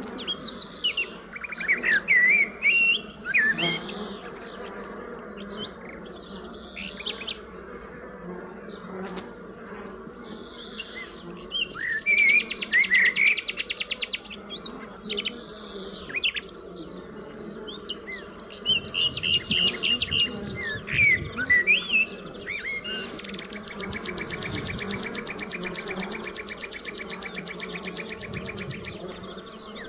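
Songbirds chirping and trilling repeatedly, with one long rapid trill near the end, over the steady low hum of honeybees flying at a hive entrance.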